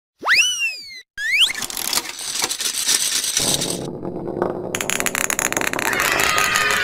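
Cartoon sound effects for a toy gumball machine taking a coin: a swooping tone that rises and falls, a second short rise, then a rushing noise that turns into a rattling clatter of many quick clicks as the gumballs come out, with several falling tones near the end.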